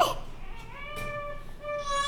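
Newborn baby crying: a wail falls off at the very start, then two steady, held wails follow, the second beginning just past halfway.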